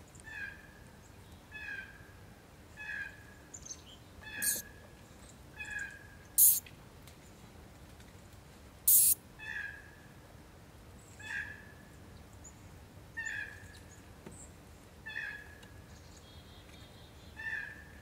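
Northern short-tailed shrew giving a series of short chirping calls, about ten in all, one every second or two, with a pause in the middle. Three brief sharp crackles, the loudest sounds, come about four and a half, six and a half and nine seconds in.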